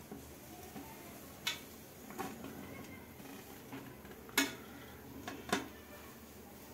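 Metal serving spoon knocking against the pressure cooker pot while biryani rice is scooped out and served onto a plate: a handful of separate clinks, the loudest about two-thirds of the way through.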